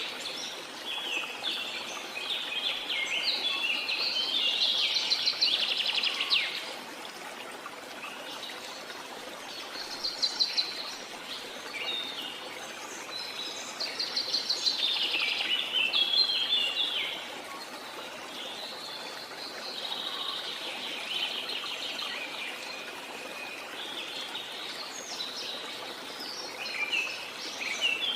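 Birds singing in bouts of rapid chirps and trills separated by short pauses, over a steady rush of falling water.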